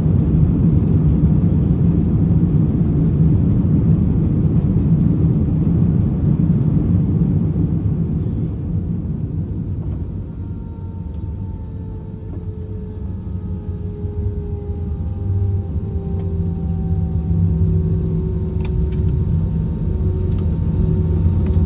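Cabin sound of an Airbus A321 with CFM56 engines, slowing down after touchdown. A loud low rumble of the rollout eases off over the first ten seconds. Then a quieter engine whine follows, with tones that slowly fall in pitch, and a few light clicks near the end.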